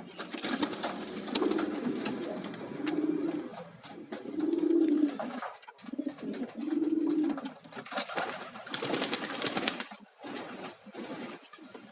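Domestic pigeon cooing: four low coos, each about a second long, with short gaps between them.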